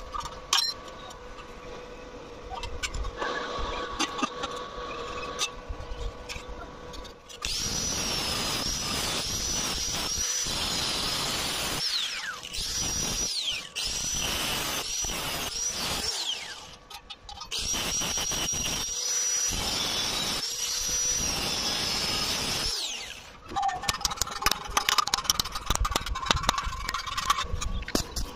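Angle grinder with a cut-off disc cutting into square steel tubing, a loud, steady high whine for about fifteen seconds. Its pitch falls away and recovers a few times as the grinder is eased off. Before it come quieter clicks of handling; after it, a stretch of dense crackling.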